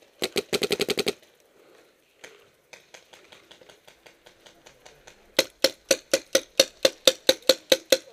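Paintball markers firing in rapid strings of sharp pops: a fast, loud burst about a quarter of a second in, fainter scattered shots in the middle, then a loud, even string of about six or seven shots a second from about two-thirds of the way through.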